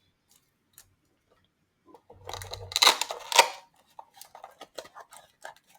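Packaging handled by hand: a burst of rustling and crinkling about two seconds in, then a run of small crackles and clicks.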